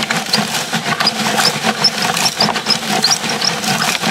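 Sand spilling from a Tonka Steel toy cement mixer and pattering down its plastic chute, with dense rapid ticking over a continuous buzzing, engine-like drone.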